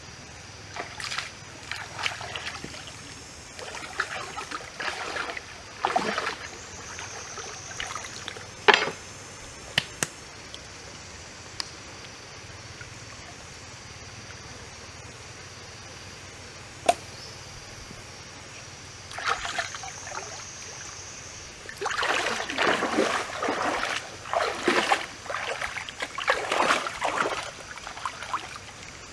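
Intermittent splashing and rustling from hands working beside a stream, in uneven clusters, with a few sharp clicks and a faint steady high hiss underneath.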